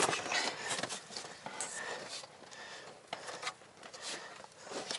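Hands rubbing and pressing on an inflatable boat's PVC tube fabric next to its aluminium floor: uneven rustling and scraping, with a few small clicks, quieter in the second half.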